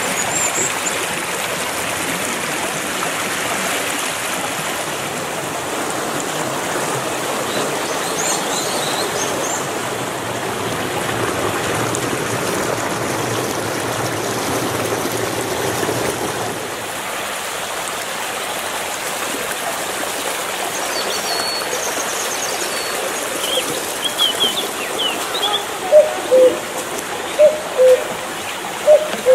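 Mountain stream rushing and splashing over rocks in a small cascade, a steady wash of water, with brief high bird chirps now and then. Near the end a run of loud, short, low hoots comes roughly once a second.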